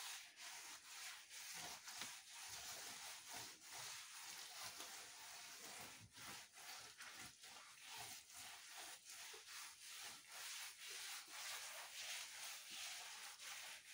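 A bare hand smearing and smoothing wet mud plaster over an earthen wall: faint, repeated rubbing strokes.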